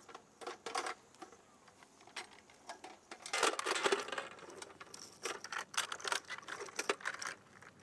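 Metallic clinking and rattling of a linked 7.62 mm ammunition belt being handled and fed toward an M240 machine gun, in irregular bursts that are busiest a little past the middle.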